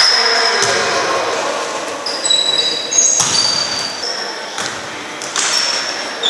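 Basketball shoes squeaking on a hardwood court in short high chirps, clustered about two to three seconds in and again near the end, with a few sharp thuds of a bouncing ball, echoing in a large gym.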